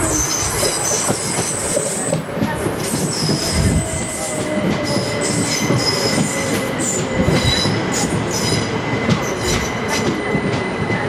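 Class 377 Electrostar electric multiple unit passing on curved track. Its wheels squeal again and again at a high pitch over the steady rumble of the wheels on the rails.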